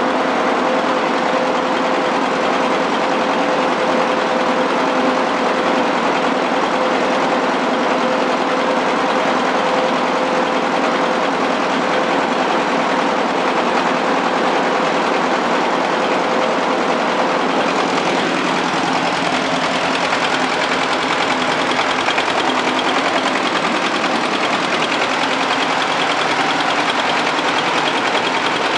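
Flatbed rice dryer's single-cylinder diesel engine running steadily, belt-driving the axial blower fan that pushes drying air through the grain bed: a loud, even machine drone with rushing air. A steady tone in it fades out about two-thirds of the way through.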